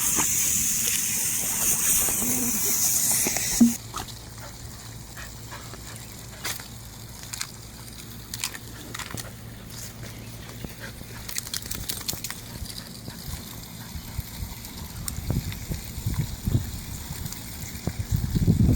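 Water spray hissing for about four seconds, then cutting off suddenly, leaving faint scattered ticks and splashes.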